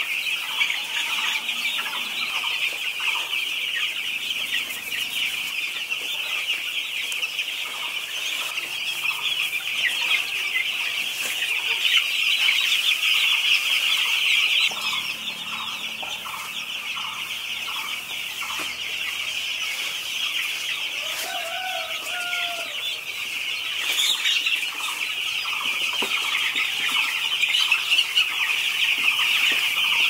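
A shed full of young broiler chicks peeping continuously in a dense high-pitched chorus, with scattered lower chirps through it.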